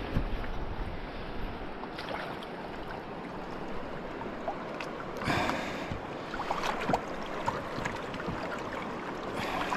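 A swollen, fast-flowing river rushes steadily past a kayak. Two short, louder bursts of water noise come about five seconds in and again near the end.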